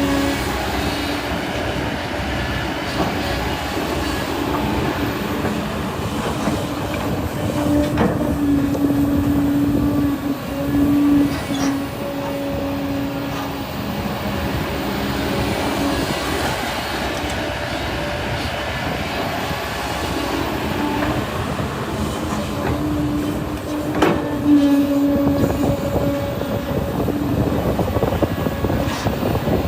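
Hydraulic excavator's diesel engine working under load, a steady hum that swells at times, with a few sharp metallic clanks.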